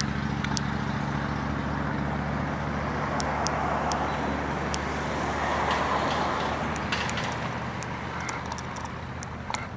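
Street traffic: a steady low drone like an idling vehicle, with a broader rush of passing traffic that swells about halfway through and then fades. Scattered light clicks sound over it, mostly in the second half.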